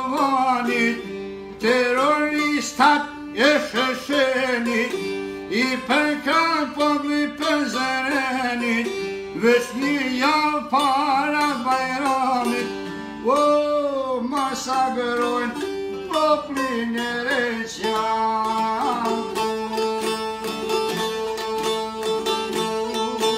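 Albanian çifteli, long-necked plucked lutes, playing an ornamented folk melody with quick gliding notes; for the last few seconds the playing holds steadily on one pitch.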